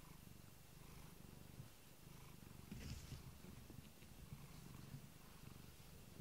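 Domestic cat purring softly, a low steady rumble, with one short sharper noise about three seconds in.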